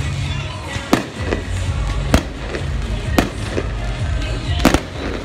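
Firework shells bursting in sharp bangs, about one a second, with a quick double bang near the end, over background music.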